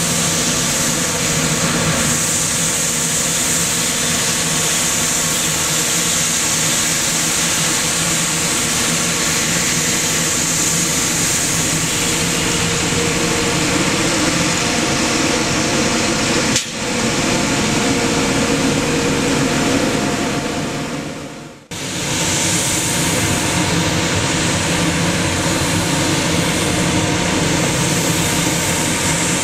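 Scania P94G 310 street sweeper truck at work: its diesel engine and sweeping gear run steadily, with a hissy, high rushing over the engine note. The rotating side brush is sweeping sand off the road.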